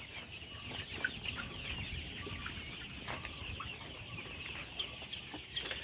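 A large flock of young layer chickens calling together at feeding time, many overlapping clucks and cheeps making a steady high-pitched chatter.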